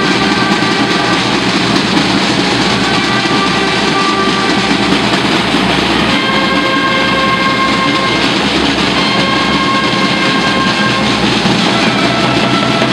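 Brass and drum procession band playing a processional march loudly: long held brass notes that change pitch every second or two, over continuous drumming.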